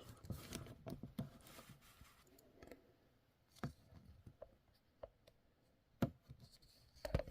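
Scattered light clicks and taps from handling things at close range, a second or so apart, as lights are being switched on. The sharpest click comes about six seconds in, with a couple more just before the end.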